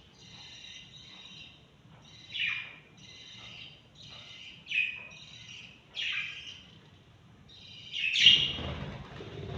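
Baby lovebirds chirping in soft runs, broken by a few louder, harsh calls. The loudest call comes near the end, with a dull thump under it.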